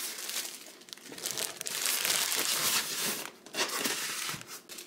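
Clear plastic bag crinkling as it is handled and lifted, a crackly rustle loudest in the middle.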